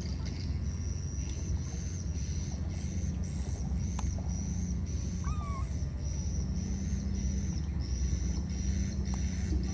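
A high-pitched chirp repeating about twice a second over a steady low rumble, with a short squeak about five seconds in.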